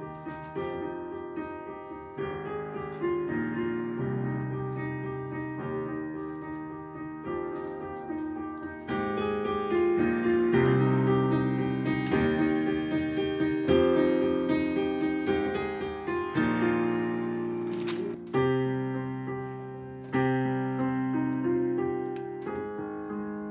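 Solo piano playing a slow piece of sustained chords, each struck and left to ring, changing every second or two and growing louder toward the middle.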